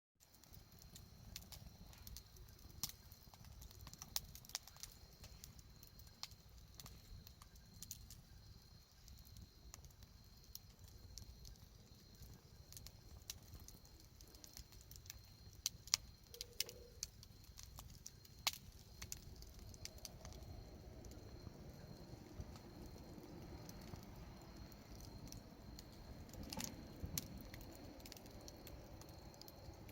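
Wood fire crackling softly, with scattered sharp pops and a few louder snaps in the second half.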